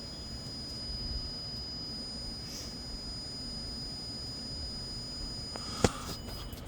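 A steady high-pitched electronic whine over a low rumble, with one sharp click about six seconds in; the whine stops shortly before the end.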